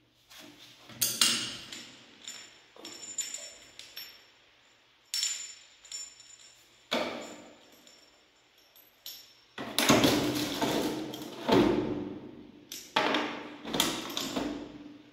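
Hands handling a flexible plastic push-shower hose and its metal fittings at a chrome wall valve: a run of rubbing and clattering noises with light metallic clinks. The loudest handling comes about ten to twelve seconds in.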